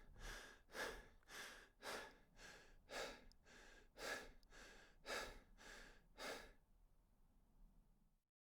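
A person breathing quickly and rhythmically, about two breaths a second, faint, stopping about six and a half seconds in.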